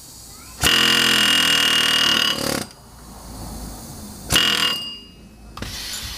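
Pneumatic air hammer firing in bursts against a broken rear wheel stud to drive it out of the hub. One long burst of about two seconds is followed by a short burst about four seconds in.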